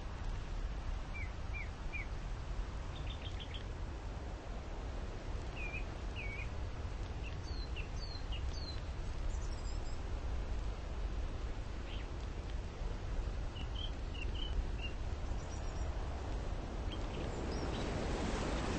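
Outdoor ambience: scattered short bird chirps and whistled notes, a few at a time, over a steady low rumbling noise.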